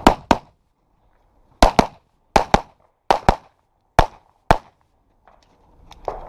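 Pistol shots fired in quick pairs, about five pairs a little under a second apart. These are the double taps on each target in a practical pistol stage.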